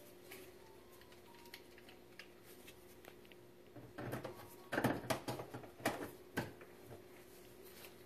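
Handling noise from unscrewing the plastic fill-hose cap inside a dishwasher's stainless-steel tub: light scrapes and clicks, then a cluster of louder knocks in the middle.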